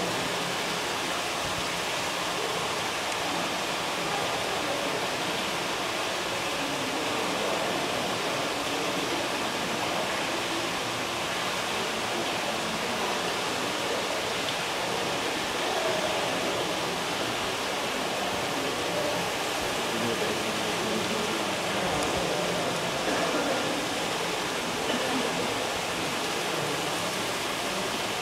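Steady, unbroken rushing noise.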